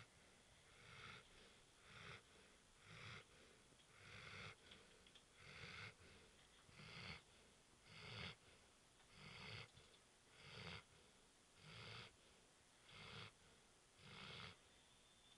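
Faint, wheezy snoring with a steady rhythm of about a dozen snores, each a little over a second apart.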